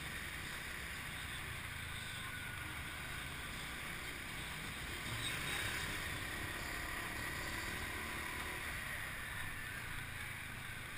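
Riding on a motorbike taxi: steady wind rush on the microphone over the motorbike's engine and road noise, swelling slightly about five seconds in.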